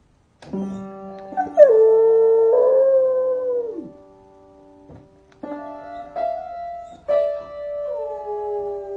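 Puppy howling along with piano chords: two long howls, each sliding down in pitch, the first the loudest, with chords struck before and between them.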